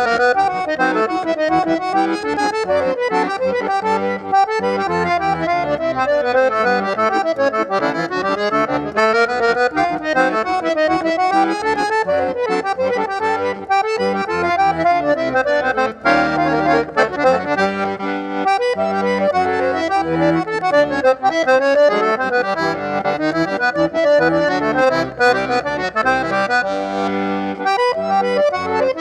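Accordion (sanfona) with more than eight basses, playing an instrumental piece with fast melodic runs. About halfway through the texture fills out into held chords under the melody.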